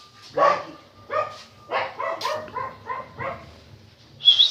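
Dogs barking in a quick run of short barks, with a loud, high-pitched yelp near the end.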